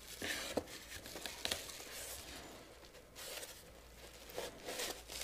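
Bubble wrap crinkling and cardboard rustling as a small bubble-wrapped device is pulled out of a cardboard box, with scattered small crackles and scrapes.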